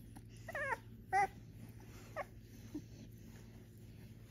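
Very young cocker spaniel puppies squeaking: a wavering squeal about half a second in, a shorter squeak just after a second, and a faint thin one around two seconds.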